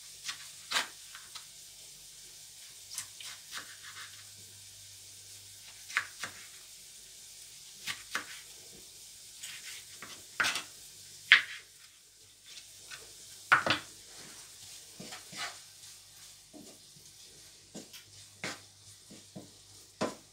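Knife chopping tomatoes on a plastic cutting board: irregular knocks of the blade against the board, a few louder ones in the middle. Faint sizzling of onions frying in a pan underneath.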